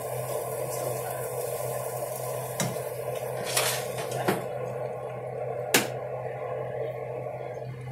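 Four sharp knocks and clatters as things are handled in an overhead kitchen cupboard, the loudest about three-quarters of the way through, over a steady appliance hum.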